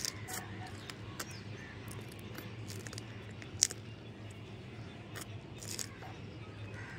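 Raw green chilli being bitten and chewed: scattered short crunches and mouth clicks, one much louder crunch about halfway through, over a low steady hum.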